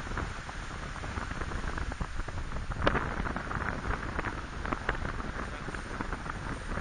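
Wind noise on an action camera's microphone: a steady low rumble with dense rustling crackle, and one sharper crackle about three seconds in.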